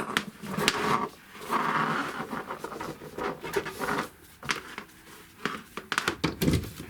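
Handling noises of a preheater and its mains cable being set up: scattered clicks and knocks with a spell of rustling, and a cluster of knocks near the end.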